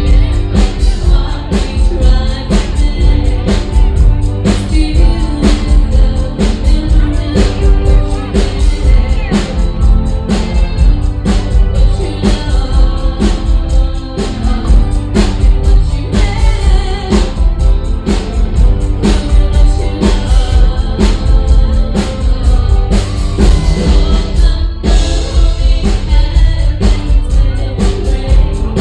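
Band music with singing over a steady drum beat.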